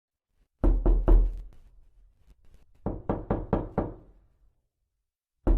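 Knocking on a door in quick knuckle raps: a few knocks, a pause, a longer run of four or five, another pause, then a new set of knocks starting at the end.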